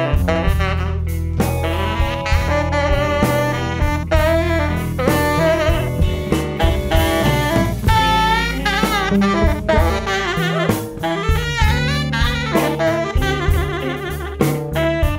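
Live blues band playing an instrumental passage: a tenor saxophone solos over plucked upright bass and a drum kit. The sax's long notes waver with vibrato, about halfway through and again near the end.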